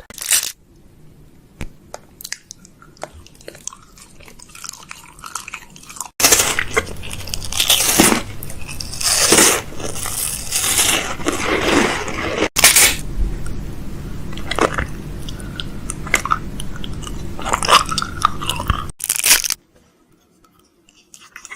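Close-miked cleansing foam being squished and worked in the hands, a dense crackling, squelching noise. It starts abruptly about six seconds in and stops abruptly near the end, after a short burst at the very start and a few faint clicks.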